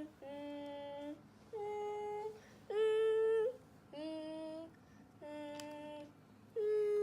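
A voice singing a string of six short held notes, each under a second with brief pauses between, moving between a few different pitches.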